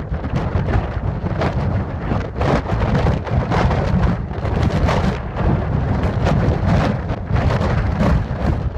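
Thunderstorm: heavy rain with a continuous deep rumble, the level rising and falling in surges.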